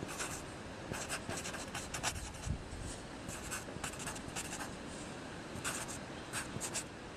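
Black felt-tip marker writing on cardboard: short strokes of the tip dragging across the surface, coming in several quick bursts with brief pauses between letters.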